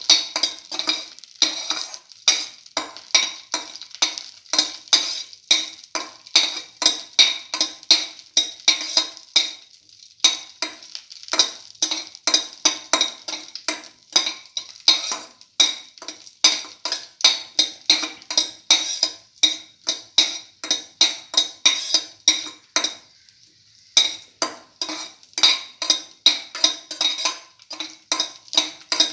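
A metal spoon stirring cashews frying in oil in a stainless steel pan, clinking and scraping against the pan several times a second, with a few short pauses, the longest about two-thirds of the way through.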